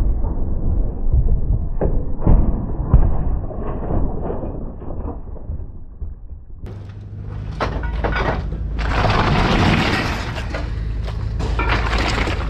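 Heavy thuds and crashes of scrap metal junk being thrown off a truck onto a scrap pile, with several hard knocks in the first half and a rougher stretch of clattering noise later on.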